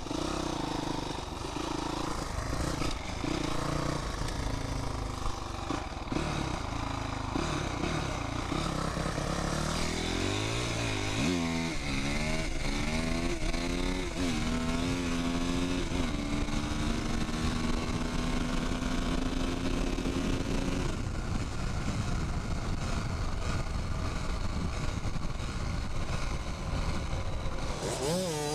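Honda CRF250X single-cylinder four-stroke dirt-bike engine running under way, its pitch rising through repeated revs in the middle, then holding steady for a few seconds, with a quick rev near the end.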